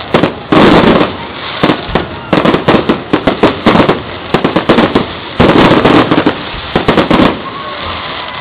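Aerial fireworks shells bursting overhead: loud sharp bangs and dense crackling, in a heavy barrage about half a second in and another about five and a half seconds in, with scattered single bangs between and fewer near the end.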